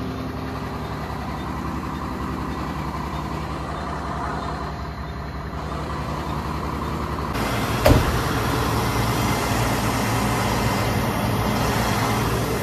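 Truck's diesel engine running with a steady pulse, getting louder and noisier about seven seconds in as it is pulled out, with one sharp crack about a second later.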